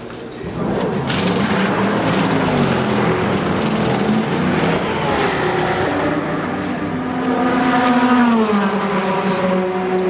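Race car engines running loudly, rising in level about half a second in, with the pitch gliding and dropping about eight seconds in.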